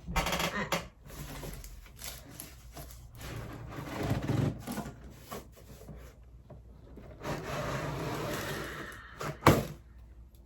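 A cardboard shoe box and its wrapping being handled and opened, with rustling, scraping and small clicks, and one sharp knock about nine and a half seconds in.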